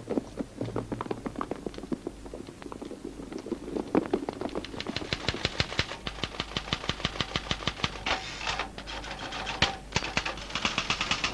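Manual typewriter being typed on, keys clacking in quick succession at several strikes a second, sparse at first and then steady from about four seconds in, with brief pauses near the end.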